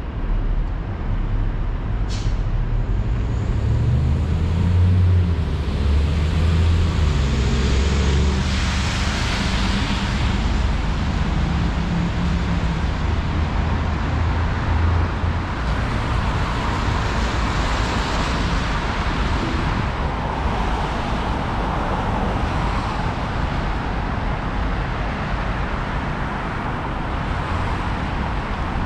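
Street traffic on wet pavement: a vehicle engine running loudly for several seconds near the start, then tyres hissing as cars pass.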